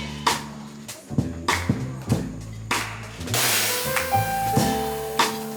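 Live jazz trio of piano, double bass and drum kit playing instrumental music, with a cymbal crash about three seconds in.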